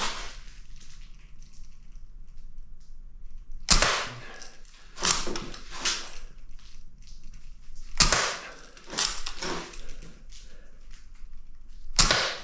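BB pistol firing three single shots about four seconds apart, each a sharp crack, with softer clicks and knocks between the shots.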